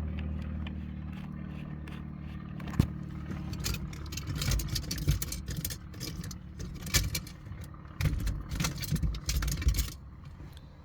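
Screwdriver and screws clicking, rattling and scraping against plastic console trim as the trim is screwed back in place, busiest in the second half. A steady low hum runs under the first few seconds.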